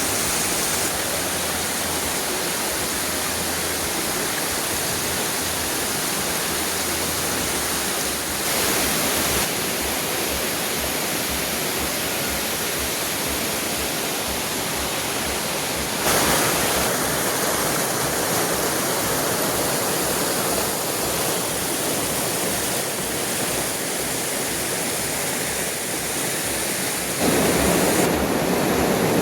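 Waterfall with twin cascades, water pouring and rushing steadily. The sound swells a little twice and turns fuller and louder near the end.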